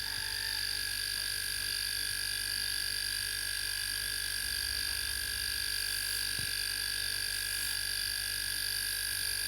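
Homemade air compressor running steadily as it pumps air into its drum, with a steady hum and a constant whine; the drum pressure is climbing toward 20 psi.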